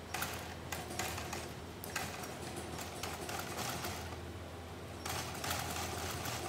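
Industrial post-bed sewing machine with a roller presser foot stitching a shoe upper in quick runs. It stops about four seconds in and starts again about a second later, over a steady low motor hum.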